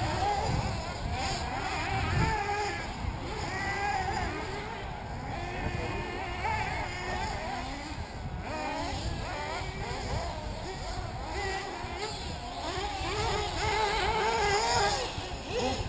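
Several 1/8-scale nitro RC buggy engines running at racing pace, their high whines rising and falling over one another as they accelerate and brake.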